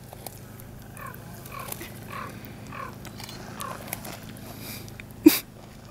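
Arctic ground squirrel gnawing at a cracker held out in a hand: a run of short, soft, evenly spaced sounds about every half second, then one sharp click a little after five seconds in.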